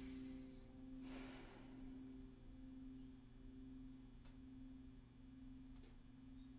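Crystal alchemy singing bowl ringing on: one low, steady tone with a slow wavering pulse, slowly fading. A soft swish of hands rubbing together about a second in.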